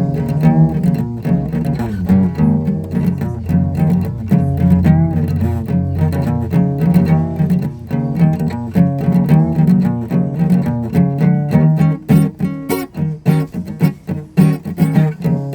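Music played on low-pitched string instruments, a quick run of separate notes. The notes turn shorter and more clipped in the last few seconds.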